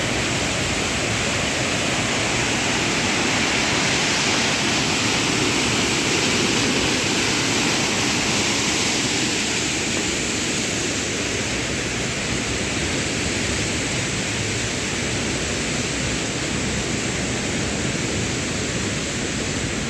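Fast-flowing mountain stream, its water rushing in a steady, loud wash.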